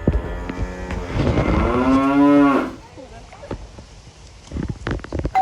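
One long, low animal call, a cow-like moo lasting about two and a half seconds, swelling and then dropping in pitch at its end. It is followed by a few faint knocks.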